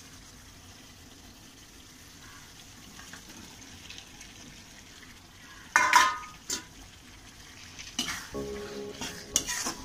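Tomatoes and masala frying with a faint steady sizzle in a steel kadai. About six seconds in, a metal spatula clanks loudly against the pan, then knocks and scrapes repeatedly near the end as the curry is stirred.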